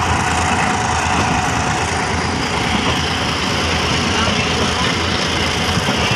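Passenger train carriage running along the track, heard from beside an open window: a loud, steady running noise with a low rumble underneath.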